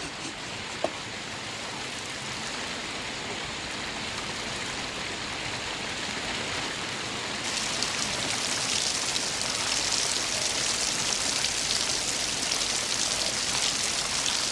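Steady rain, slowly growing louder and turning heavier and hissier about halfway through, with a single click about a second in.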